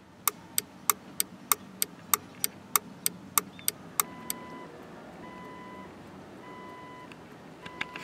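Turn signal flasher of a 2003 Jeep Wrangler clicking steadily, about three clicks a second, the reseated flasher working again. About four seconds in the clicking gives way to a beeping tone repeating roughly once a second, with a couple more clicks near the end.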